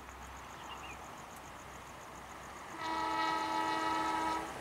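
Horn of the approaching Sembrani express train's locomotive: one steady blast of about a second and a half, starting a little past the middle, with a second short toot beginning just as it ends.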